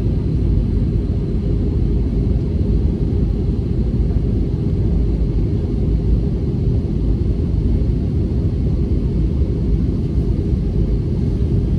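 Steady low rumble of a jet airliner's engines and airflow heard inside the passenger cabin, even throughout with no change in pitch.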